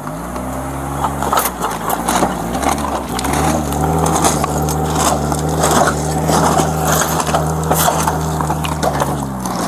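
GMC Envoy's engine revved hard and held at high revs while the SUV is stuck on railroad tracks, its wheels spinning with crunching and crackling. The revs rise in the first second, stay up, and drop just before the end.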